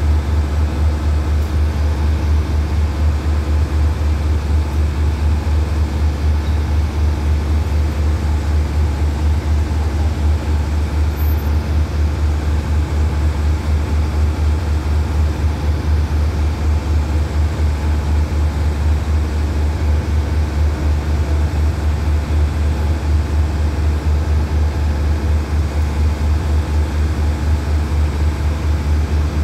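Diesel engine of a stationary passenger train running steadily at idle: a constant low, pulsing hum.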